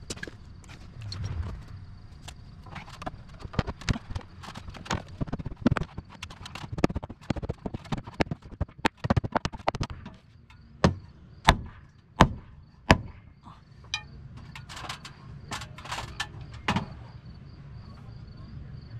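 Irregular knocking and tapping on wood, with four hard blows about two-thirds of a second apart a little past the middle: a new rim joist board being knocked into a tight, out-of-square opening in a house wall.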